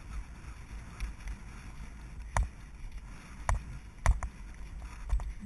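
Wind rushing over the microphone of a camera on a galloping horse, with a few sharp thumps of hooves. The loudest comes about four seconds in, as the horse reaches a log fence.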